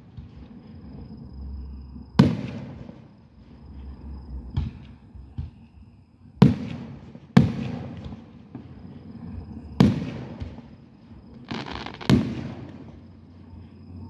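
Aerial fireworks shells bursting: six sharp booms at uneven intervals of one to two and a half seconds, each trailing off in an echo, with a crackling hiss just before the last.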